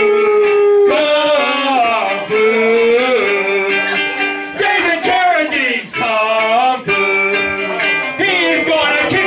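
Singing with a ukulele played along: long held notes that slide up and down between phrases.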